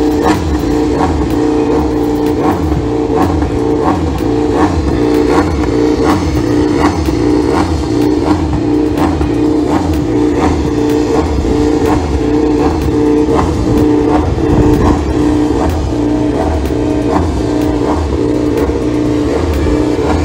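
Background music with a steady beat of about two strokes a second over a sustained droning tone.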